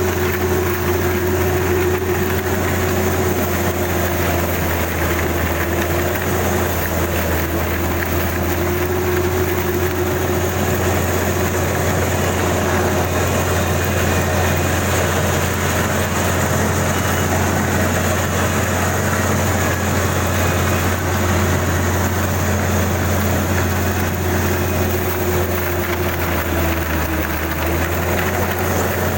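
Kubota DC-35 combine harvester running steadily, a diesel engine with machinery noise, a deep hum under a whine that sags slightly about six seconds in and again near the end.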